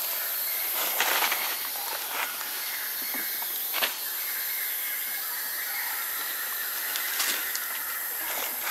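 Steady high hiss of outdoor forest ambience, with a few short sharp rustles and crackles of dry leaves under a young macaque's feet: about a second in, just before four seconds, and around seven seconds.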